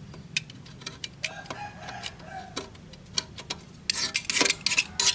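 Utility knife blade scraping and ticking on the metal heating plate of a rice cooker: scattered sharp clicks, then a dense run of scratching strokes about four seconds in. The blade is scraping off the crusted dirt that keeps the inner pot from sitting flush on the plate, the cause of the rice not cooking.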